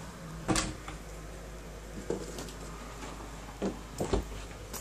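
A few short knocks and bumps, the loudest about half a second in and two close together near the end, over a low steady hum.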